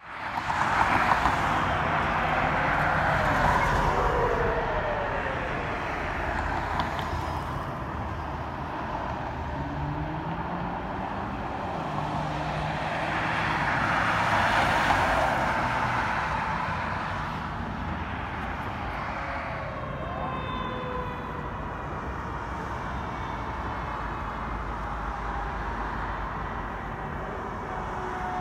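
Ambulance siren wailing over traffic noise as the ambulance drives past, loudest about halfway through. Near the end a steady horn-like tone starts up as the fire engine approaches.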